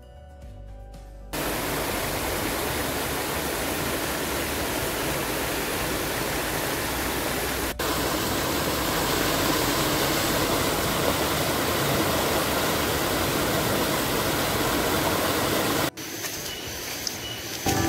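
Rushing water of a rocky stream spilling over boulders in small cascades: a steady, even rush that comes in about a second in, breaks for an instant midway and drops away near the end.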